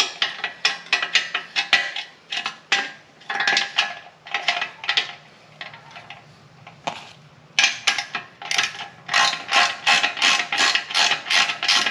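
Hand ratchet clicking in quick runs of strokes as tight exhaust fasteners are worked loose, with a short pause of a second or two in the middle.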